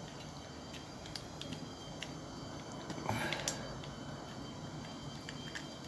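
Faint clicks and small knocks from the parts of a Rapid 14 stapler being handled and worked after its handle pin has been removed, with a short clatter of handling about three seconds in.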